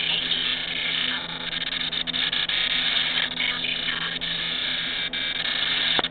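Garbled, warbling television audio from a weak ATSC digital broadcast breaking up, with a low hum under it and a few brief dropouts. The sound is corrupted by the same signal loss that breaks the picture into blocks.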